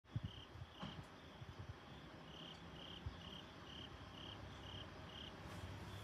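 Faint cricket chirping: short, evenly spaced chirps about twice a second, over a low steady hum. A few soft knocks come in the first second.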